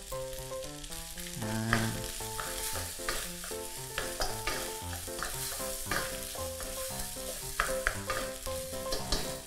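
Fried rice sizzling in a wok while a wooden spatula stirs and scrapes it in short, uneven strokes. Quiet background music plays underneath.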